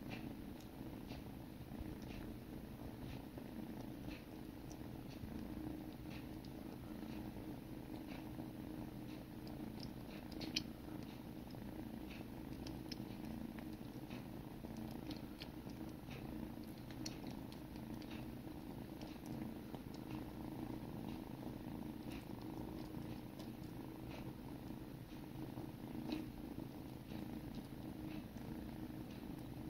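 Kittens purring steadily and close up, with scattered soft clicks of tongues licking fur as they groom each other.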